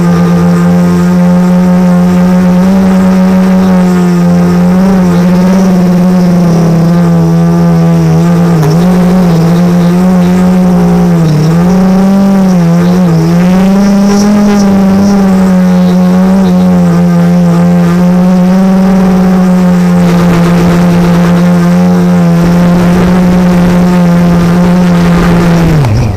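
XJ470 quadcopter's motors and propellers running with a loud, steady hum, heard from the camera mounted on the drone itself. The pitch wavers up and down through the middle as it manoeuvres, then the motors spin down and stop at the very end as it lands.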